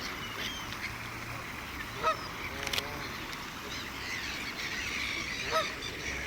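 Waterfowl calling: honking calls, loudest about two seconds in and again near the end, over a steady chatter of many short, higher bird calls.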